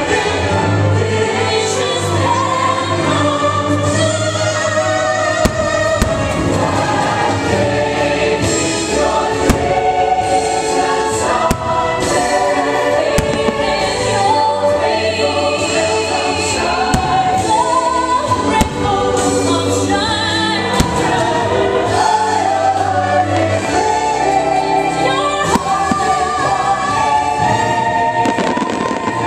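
Fireworks show soundtrack: choir singing over orchestral music, with firework bursts going off now and then over it.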